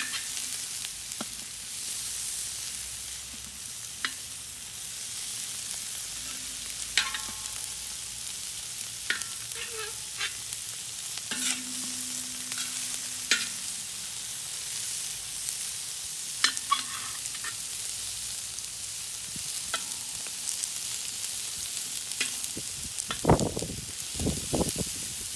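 Chopped onions and peppers frying in bacon fat in a hot pan, giving a steady sizzle. Scattered clicks and short scrapes come from a utensil stirring against the pan.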